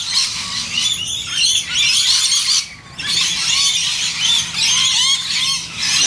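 A flock of parrots calling: a dense, continuous chorus of short high chirps and screeches, with a brief lull about three seconds in.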